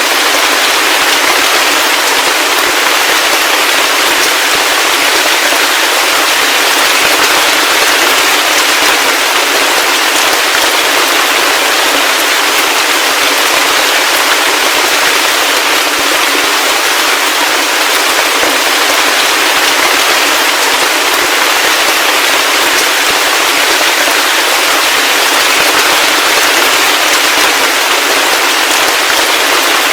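Heavy rain falling steadily, a dense, even hiss of countless drops with no thunder.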